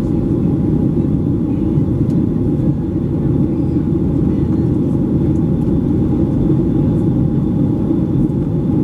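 Steady cabin rumble of a Boeing 737-800 in flight, heard from a window seat behind the wing: the CFM56-7B engines and airflow give an even low roar, with a faint high steady whine above it.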